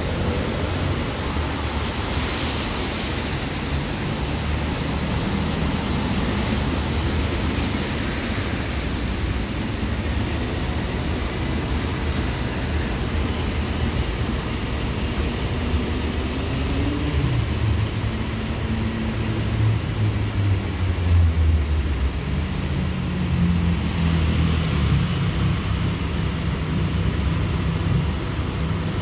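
Street traffic on a wet road: diesel bus engines running with cars passing, over a steady hiss. Partway through, a bus engine's pitch shifts and rises, loudest about twenty seconds in.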